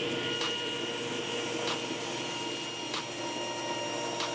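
Table saw motor and blade running steadily at full speed just after start-up, a steady whine with faint ticks about every second and a quarter.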